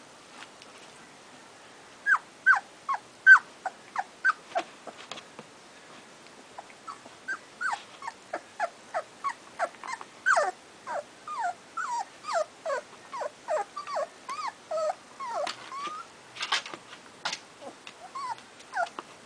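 Puppies whimpering and yelping: many short, high cries that slide down in pitch, a few a second, starting about two seconds in, with a brief lull near the six-second mark.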